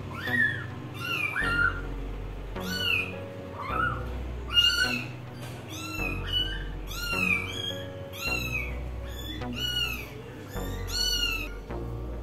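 Kittens mewing over and over, short high mews that rise and fall in pitch, one or two a second, over background music with a steady bass line.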